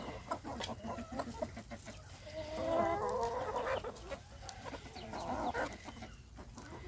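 A flock of backyard hens clucking and calling while they feed, with many short clicks of pecking. The calling is loudest about two and a half to four seconds in.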